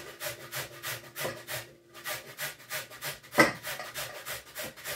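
Carrot being grated on a flat metal hand grater into a steel bowl: quick, rhythmic rasping strokes, about five or six a second, with a short break near two seconds in. One louder sharp clack comes about three and a half seconds in.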